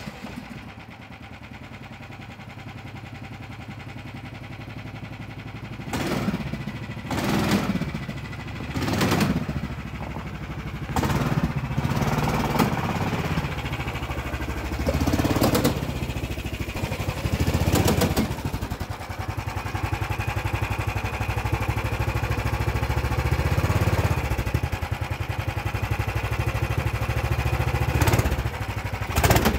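A lifted golf cart's gas engine running, revved in several short surges during the first half, then running steadily.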